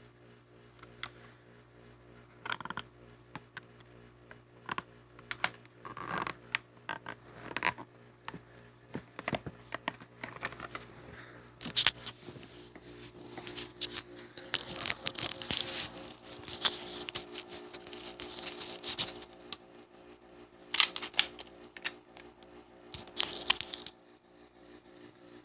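Scattered sharp clicks and rustling of a steel PHP MV 9mm pistol being handled, over a steady low hum.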